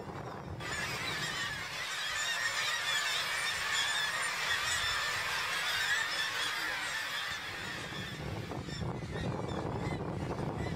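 A colony of black-legged kittiwakes calling, many overlapping calls at once in a dense chorus. It starts abruptly about half a second in and thins out near the end, when a low rumble comes up.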